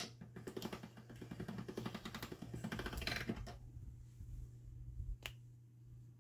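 Hand-cranked pasta machine being turned as polymer clay is rolled through it: a rapid run of clicks for about three and a half seconds, then a single click about five seconds in.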